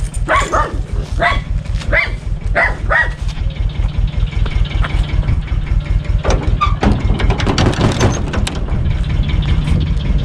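Same tractor's diesel engine running steadily, with a dog barking several times in the first three seconds.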